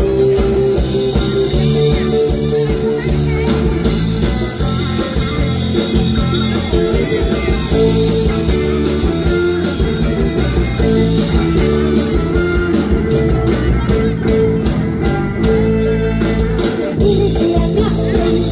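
Live band music heard from among the audience: electric guitars, bass and drums playing a Thai Isan song, loud and bass-heavy.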